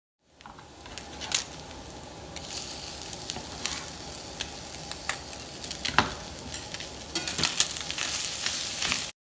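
Chopped chicken and diced onion sizzling in a cast-iron skillet, the sizzle growing louder about two seconds in. A spatula stirs through the food, knocking and scraping against the pan several times.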